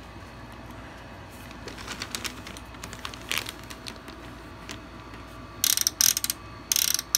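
Clicks and rattles from handling the opened air fryer's sheet-metal housing and its wiring. These are scattered at first, then turn into a run of loud, scraping rattles in quick clusters from about five and a half seconds in.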